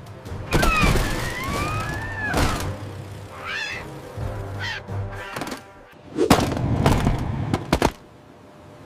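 Seagull squawks as cartoon sound effects over background music, with several thumps and knocks about six to eight seconds in.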